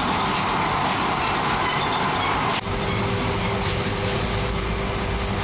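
Passenger train in motion heard from inside the coach: a steady rush of running noise from wheels and track. About two and a half seconds in it changes abruptly to a lower rumble with a steady hum.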